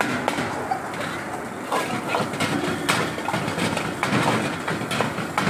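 Steel ladle scraping and knocking against a large iron wok as fried rice is stirred: irregular metallic clanks, about one or two a second, over a steady rushing background noise.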